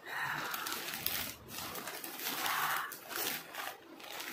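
A man breathing hard through his mouth, two long hissing breaths, the first at the start and the second in the middle: a reaction to the burn of a very spicy chip in his mouth.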